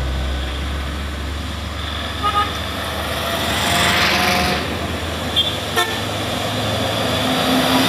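Heavy trucks and a pickup coming up a steep grade and passing close, their engines running under load. There are several short horn toots: a pair about two seconds in and two more about five and a half seconds in.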